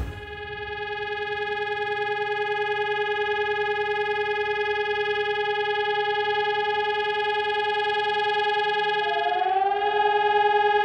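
Civil-defence warning siren sounding a steady tone, the signal used in the German siren test, building up over the first couple of seconds and then holding one pitch. About nine seconds in, a second rising tone slides in beside it, and near the end the pitch begins to fall.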